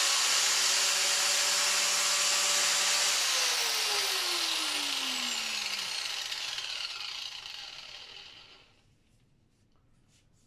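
MaxExtra MX8116 angle grinder with a toothed cutting disc running free at full speed with a high whine, then switched off about three seconds in and spinning down, its whine falling in pitch and fading away over the next five seconds. A few light clicks follow near the end.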